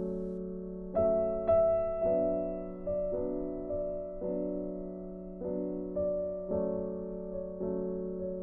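Background piano music: slow, soft notes and chords struck about once a second, each ringing and fading away.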